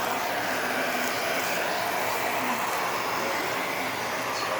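Porterhouse steaks sizzling steadily on a hot charcoal grill just after being flipped, an even hiss with a few faint crackles.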